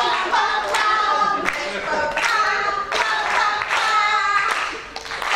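Voices singing a lively tune, with hands clapping along on the beat, a little more than once a second.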